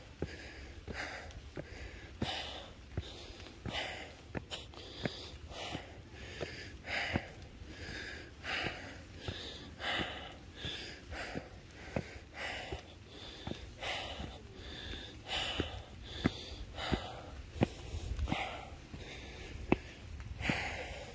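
A hiker panting hard while climbing steep steps, a quick steady rhythm of heavy breaths in and out, with light footfalls on the wooden steps.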